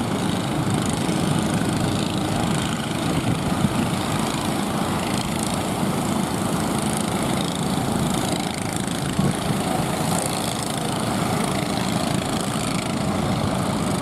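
Boat engine running steadily, with no change in speed.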